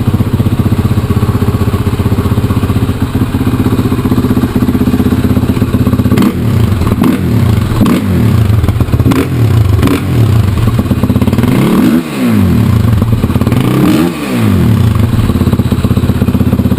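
Suzuki LTR450 quad's single-cylinder four-stroke engine through a Doma Racing aftermarket exhaust, running at a steady pitch at first. From about six seconds in, the revs rise and fall repeatedly, with two quick rev sweeps near the end.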